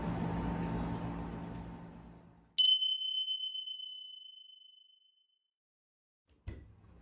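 A single bright chime sound effect, struck once about two and a half seconds in and ringing out over about two seconds as the faint kitchen room sound fades away beneath it. A short knock follows near the end.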